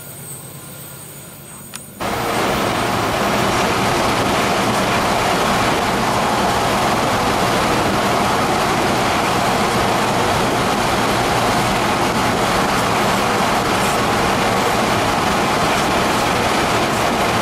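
BNSF double-stack intermodal freight train rolling past with a loud, steady noise of its wheels on the rails. The noise starts suddenly about two seconds in, after a quieter stretch.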